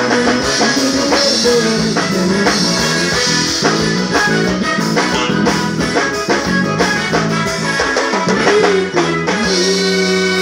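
Forró band playing live through the stage PA during a soundcheck: electric bass, drum kit and electric guitar in a busy rhythmic passage, which settles into a held chord near the end.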